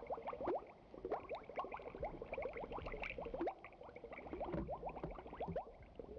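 Underwater bubbling sound effect: a quick stream of short, rising bloops, several a second, over a low rumble.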